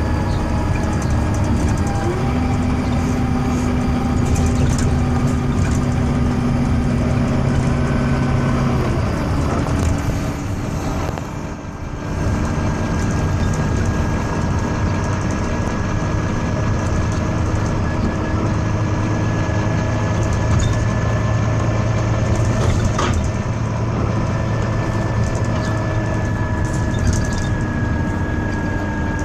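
Volvo B9TL double-decker bus with its six-cylinder diesel running, and a steady high wail sounding over the engine drone. The engine note steps up about two seconds in and drops about nine seconds in, with a brief lull a little later.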